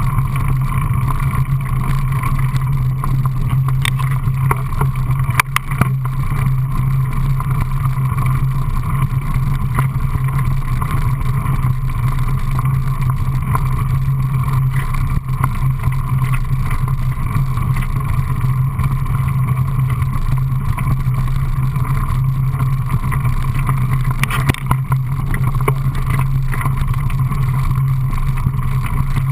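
Mountain bike rolling fast over a gravel singletrack, heard from a camera mounted on the front of the bike: a steady rumble of tyre and wind noise, with a few sharp knocks from bumps about five seconds in and again near 25 seconds.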